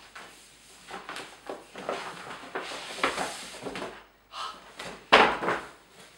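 A stiff paper shopping bag rustling and cardboard boxes scraping and sliding as they are pulled out and handled, with a sharp knock about five seconds in.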